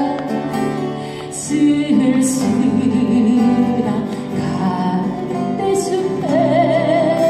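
A woman singing a slow Korean folk ballad with vibrato, accompanied by acoustic guitar.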